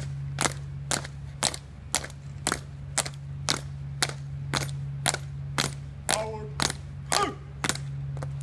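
Marching footsteps of a four-person Navy color guard stepping in unison on stone paving: sharp shoe strikes at an even cadence of about two steps a second, over a steady low hum. A shouted command, "Forward", cuts in about six seconds in.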